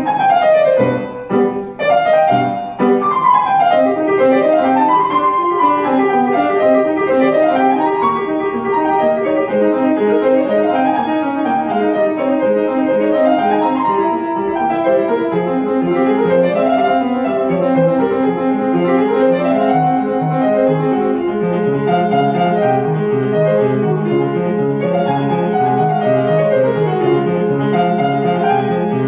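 Grand piano playing a classical piece: a few separate chords in the first seconds, then fast continuous runs of notes rising and falling over a steady repeated accompaniment in the lower register.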